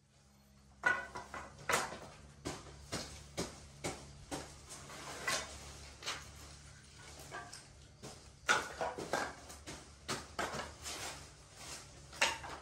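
Irregular knocks and clatter of hard objects being handled and set down, two or three a second, with a pause of about a second in the middle.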